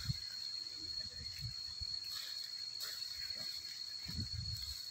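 Steady high-pitched insect drone, one unbroken tone, over quiet rural background, with a few faint low knocks around four seconds in.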